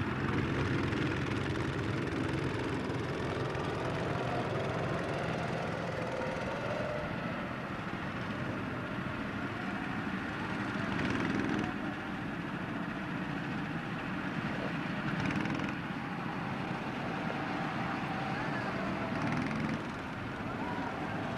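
Small go-kart engines running as the karts lap the track. The engine pitch rises and falls, and the sound swells briefly a few times as karts pass closer.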